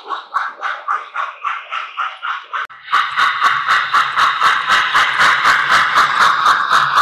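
Electronic steam-chuff sound of an O-gauge model steam locomotive running, steady chuffing at about four to five beats a second. About three seconds in it suddenly gets louder, with a low hum underneath.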